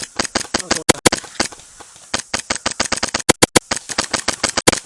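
Airsoft guns firing: many sharp shots in quick, irregular strings, several a second.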